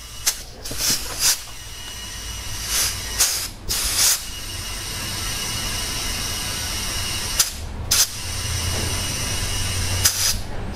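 Compressed air hissing steadily into a tire through an inflator chuck on the valve stem, with several sharp pops scattered through it as the tire is inflated to seat its beads on the rim.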